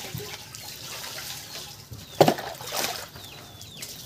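Water poured from a plastic jug onto a metal hollow-block mould, trickling and splashing, with a single sharp knock about two seconds in.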